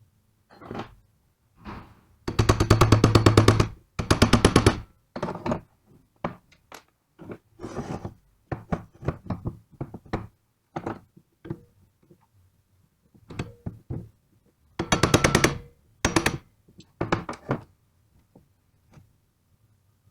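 Pneumatic impact wrench run in several short bursts of rapid hammering, with loose knocks and clanks of tools and metal parts in between.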